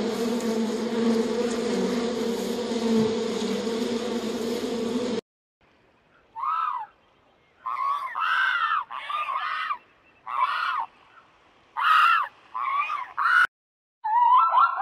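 A honeybee colony buzzing on its comb: a steady drone that cuts off suddenly about five seconds in. After a short silence comes a series of about seven short bird honks, each rising and falling in pitch. Near the end a quick string of zebra calls begins.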